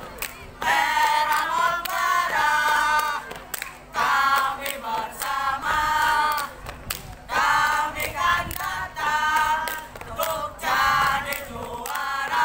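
A group of young voices chanting and singing a scout yel-yel cheer in unison, in short phrases with brief pauses between them.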